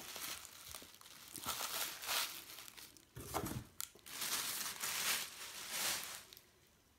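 Tissue paper crinkling and rustling in several bursts as a bath bomb is unwrapped and laid on it, with a dull knock about three seconds in.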